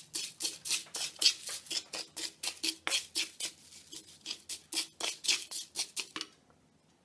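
A spoon stirring and scraping curry leaves and spice powder being dry-roasted in a pan: quick, rhythmic scratchy strokes, about three a second, that stop about six seconds in.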